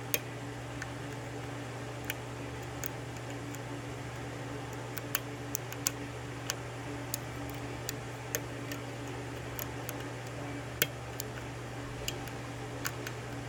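Sparse, irregular small clicks of a lock pick and tension wrench working the pins of a 6-pin Yale pin-tumbler half euro cylinder, with the last pin still unset, over a steady low hum.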